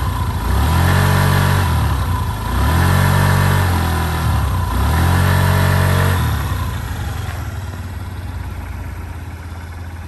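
Honda Gyro Canopy's stock water-cooled four-stroke single-cylinder engine revved three times, each rev climbing and falling back over about a second and a half. It then settles to a steady idle for the last four seconds.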